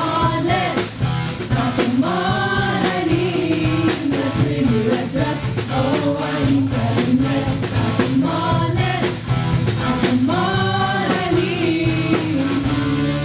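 Live pop-rock band: a group of singers in unison and harmony over a steady drum-kit beat, electric and acoustic guitars and bass guitar, amplified through stage speakers. Right at the end the drum beat drops out and a chord is held.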